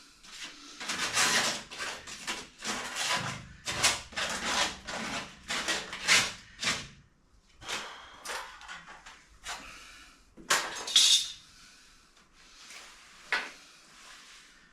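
Hard objects being handled during a job: a dense, irregular run of scrapes, rubs and clatters for about seven seconds, then a few separate sharp knocks, the loudest about ten and a half seconds in.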